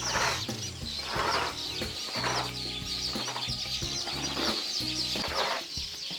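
Chickens clucking and small birds chirping over background music, with a soft hiss repeating about once a second.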